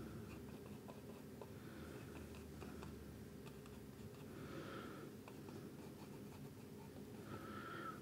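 Faint room tone with the soft scrubbing of a paintbrush on a small canvas, a little louder a couple of times.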